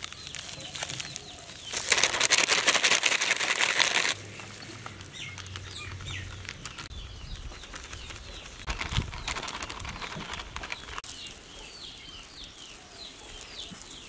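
Plastic flour packet crinkling and rustling as all-purpose flour is poured out of it, in a loud stretch a couple of seconds in and a quieter one about nine seconds in. Small birds chirp in the background throughout.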